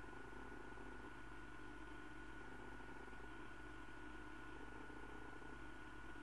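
Faint steady hiss and hum with a constant high-pitched tone: the noise floor of a soundless transfer of old film footage, with no other sound.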